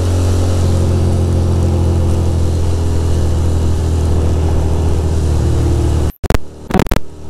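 Ducati Monster's L-twin engine running steadily at cruising speed, with wind rushing over the rider's microphone. About six seconds in, the recording cuts out several times in short dropouts.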